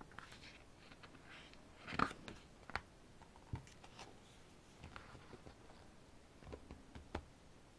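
Photobook pages being handled and turned by hand: faint scattered rustles and light taps of paper, the loudest about two seconds in.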